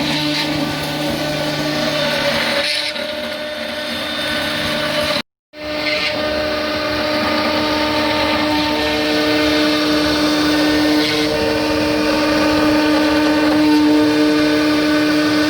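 Hobby CNC machine running: a steady motor whine with several held tones that shift as the machine moves. The sound cuts out briefly about five seconds in, then resumes.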